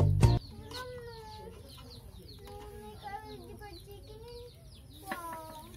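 Domestic chickens clucking, with many high, quick falling peeps running through. A brief loud burst right at the start is the loudest moment.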